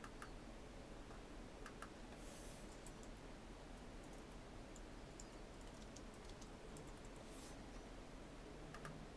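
Faint computer keyboard typing and mouse clicks: scattered light keystrokes, a few at a time, over a low steady hum.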